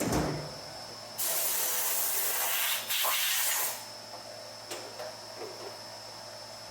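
Compressed air hissing in two blasts, about two and a half seconds in all, after a short knock, over a faint steady high whine.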